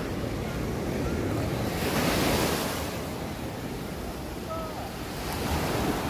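Small sea waves breaking and washing up a sandy beach, the wash swelling loudest about two seconds in and again near the end, with wind rumbling on the microphone.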